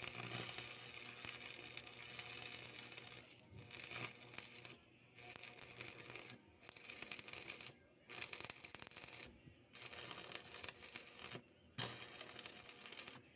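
Harsh scraping, rasping noise from work on the sidecar's metal parts, coming in about seven bursts of one to two seconds with short gaps between them. A low hum sounds under some of the bursts.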